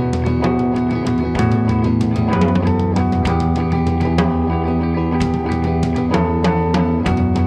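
Rock band recording: guitars playing held, ringing chords over a drum kit with steady cymbal and drum hits.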